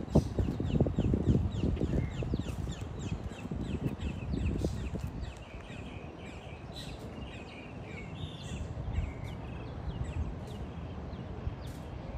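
Small birds chirping in quick, high, downward-sliding notes, several a second, with a few steadier calls about halfway through, over a low rumble that eases off after about five seconds.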